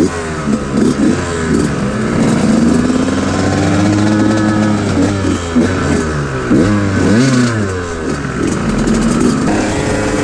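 Two-stroke moped engine revving while riding. Its pitch climbs and drops again and again: several quick rises at the start, a long climb in the middle, and more rises and falls later on.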